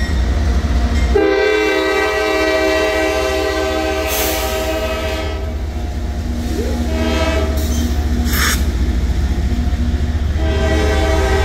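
Norfolk Southern freight locomotive air horn sounding a multi-tone chord for the street crossing. A long blast starts about a second in and dies down after about five seconds, then the horn sounds again near the end. Under it runs the steady low rumble of the passing manifest train's locomotives and freight cars on the rails, with two brief high hissing noises midway.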